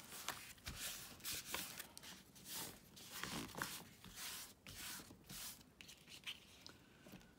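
Paper and card rustling and scraping as the folded flaps of a handmade journal folio are opened and pressed shut, a string of soft, separate rustles.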